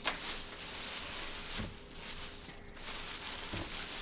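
Plastic shopping bag crinkling and rustling as a hand rummages through it for tools and parts. It starts suddenly and goes on in uneven swells.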